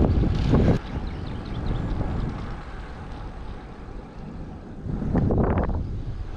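Wind buffeting the microphone of a bicycle-mounted action camera while riding, with a low rushing noise. It is loud at first, drops abruptly under a second in, then swells louder again about five seconds in.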